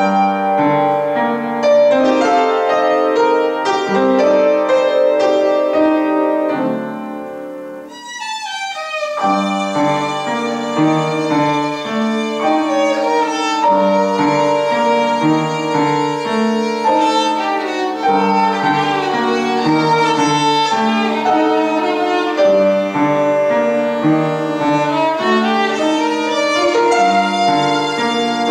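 Violin and piano duo. The upright piano plays the introduction alone, and about nine seconds in the violin enters with a bowed melody over the piano accompaniment.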